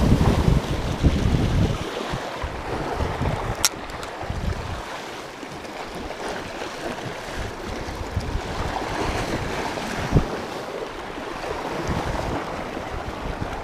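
Small sea waves washing over shore rocks, with wind buffeting the microphone, heaviest in the first couple of seconds. A sharp click comes a few seconds in and a short thump near the end.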